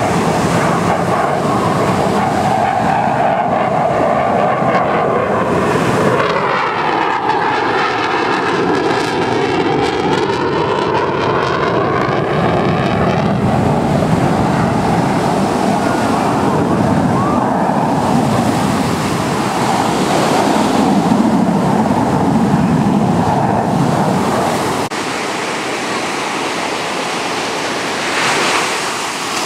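Jet noise from an F/A-18 fighter's twin engines as it flies its display: a loud, continuous rush. Between about six and thirteen seconds in, the noise takes on a sweeping, swirling whoosh as the jet passes. It becomes a little quieter in the last few seconds.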